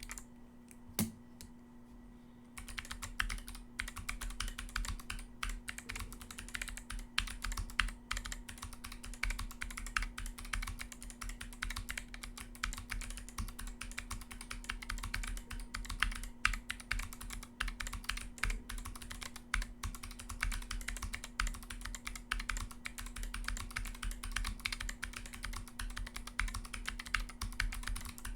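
Fast, continuous typing on a Lily58 Pro split mechanical keyboard with Kailh Box White clicky switches and MA-profile keycaps, a dense run of crisp key clicks. A single click comes about a second in, and the typing starts a moment later.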